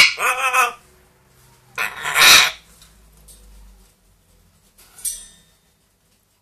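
Pet parrot calling: a loud call with a wavering pitch at the start, a second loud call about two seconds in, and a short harsh noisy sound near five seconds.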